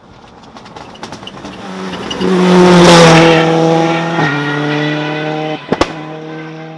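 Rally car engine at full throttle, growing louder as it approaches, passing close with its pitch falling, then pulling away with an upshift about four seconds in. Two sharp cracks come a little before the end.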